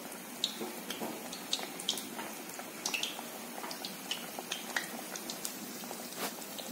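Besan-battered pumpkin flowers deep-frying in hot oil: a steady sizzle with scattered small pops and crackles.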